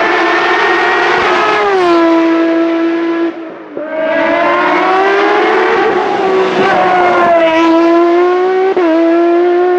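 High-revving engine of an open-cockpit sports prototype race car. Its pitch falls as it slows for a bend. After a brief drop in level it climbs again under acceleration, with a quick dip in pitch near the end like a gear change.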